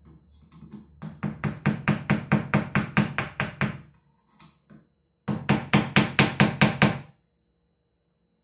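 Screwdriver tip tapped with the handle of a second screwdriver to tighten the locknut of a Romex cable connector in a metal ceiling electrical box: two runs of quick, even metal knocks, about five a second, with a pause of about a second and a half between them.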